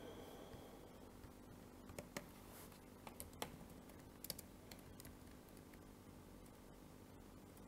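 Faint keystrokes on a computer keyboard: scattered key clicks, most of them between about two and five seconds in, over a low steady hum.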